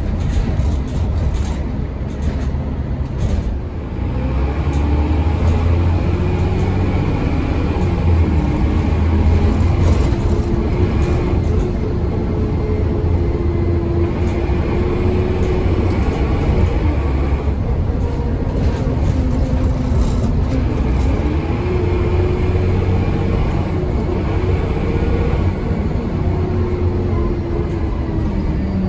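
Dennis Trident double-decker bus heard from inside the saloon while being driven hard. The diesel engine pulls with a heavy rumble, and a whine from the driveline and Voith four-speed automatic gearbox climbs in pitch, then falls back and climbs again. Occasional knocks and rattles come from the body.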